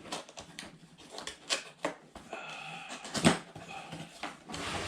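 Cardboard box being opened and its packing handled: scattered rustles and light clicks, with a sharper knock a little past three seconds.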